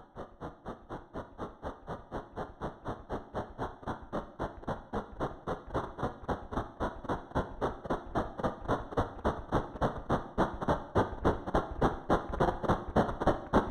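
Model train running on its track, its wheels clicking in an even rhythm of about three and a half clicks a second, growing steadily louder as it comes closer.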